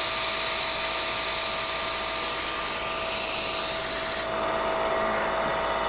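CNC milling machine spindle running with a steady whine under the loud hiss of the mist coolant spray. About four seconds in the hiss cuts off suddenly while the spindle keeps whining: the coolant shutting off at the end of the cutting cycle.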